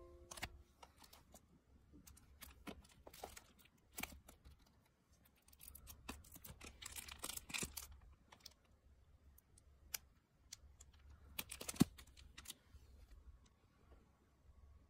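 Shrink-wrapped manga volumes and a packaged acrylic stand being handled and shifted: scattered clicks, taps and plastic-wrap crinkles, the loudest tap about twelve seconds in.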